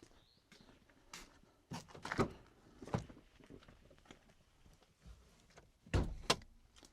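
A series of knocks and thumps: several about one to three seconds in, and two louder ones close together near the end.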